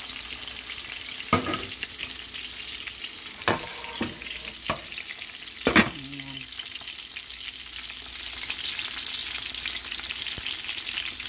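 Chicken thighs frying in oil in a stainless steel skillet: a steady sizzle that grows louder in the second half. Several knocks of metal cookware being handled in the first half, the loudest about halfway through.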